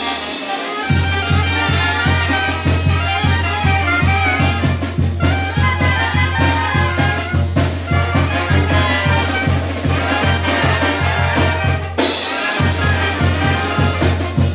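Oaxacan brass band (banda de viento) playing a chilena: trumpets and trombones carry the tune over a sousaphone bass line and a drum kit keeping an even beat. The bass and drums drop out briefly just after the start and again about twelve seconds in.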